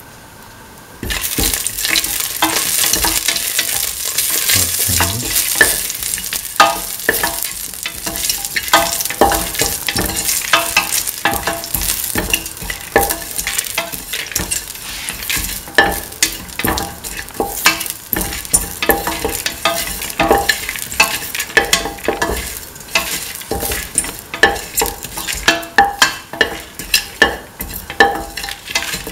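Fennel seeds and dried red chilies sizzling in hot oil in a stainless steel pan, stirred with a spatula that scrapes and taps against the pan bottom. The sizzle starts suddenly about a second in and keeps on, with many sharp scrapes over it.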